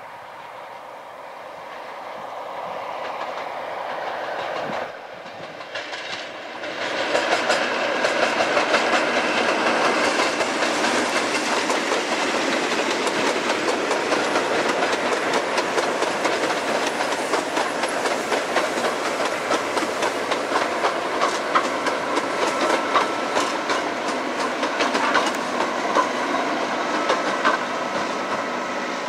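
A Class 47 diesel locomotive approaching, its engine growing steadily louder. After a break about five seconds in, a Class 88 locomotive running on its diesel engine passes close with its coaches: a loud, steady run dense with rapid clicks of wheels over rail joints.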